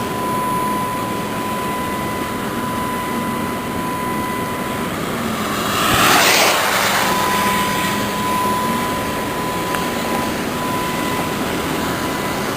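Car driving along a road, heard from inside the cabin: a steady rush of road and engine noise with a thin, steady high whine. About six seconds in, a louder whoosh swells and fades.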